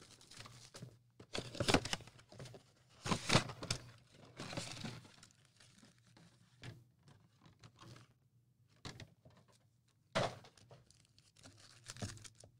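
A 2017-18 Panini Donruss Optic basketball mega box is torn open and its foil card packs crinkle as they are handled. The sound comes in short scattered bursts of tearing and rustling, most of them in the first five seconds, another about ten seconds in, and near silence between.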